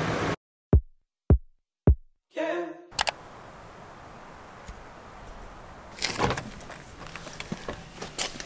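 Three quick sweep sound effects, each falling steeply in pitch, about half a second apart, after a running engine cuts off abruptly. A low steady background follows, broken by a few knocks and rustles.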